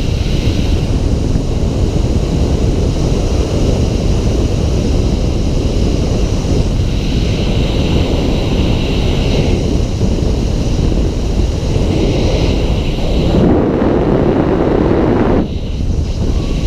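Steady road and wind noise inside a moving vehicle: a low rumble with a rushing hiss. It swells for about two seconds near the end, then drops suddenly.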